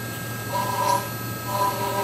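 5-axis CNC milling machine's spindle running with a steady whine and hum while its end mill cuts a laminated katsura wood block. A pitched cutting buzz swells for about half a second roughly once a second as the tool bites into the wood on each pass.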